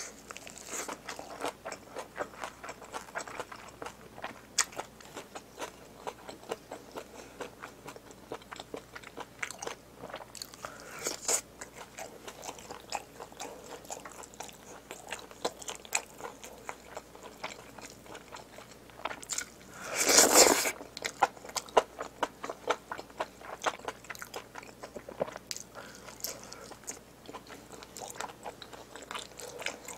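Close-miked chewing and biting of a lettuce wrap and spicy braised pig's trotters, with many small wet mouth clicks and crunches. About twenty seconds in there is one louder noisy burst lasting under a second.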